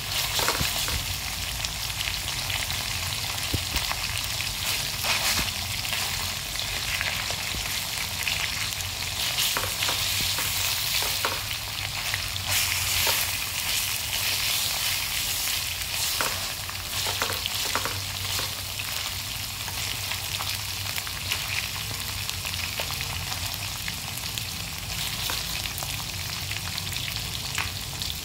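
Pork cutlets coated in minced lemongrass shallow-frying in oil in a small metal pan: a steady sizzle with scattered sharp pops and crackles.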